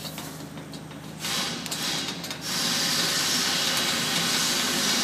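Rubber window gasket rubbing and sliding against a sheet-metal edge as it is pressed onto the cutout by hand. It comes in about a second in and settles into a steady hiss for the second half.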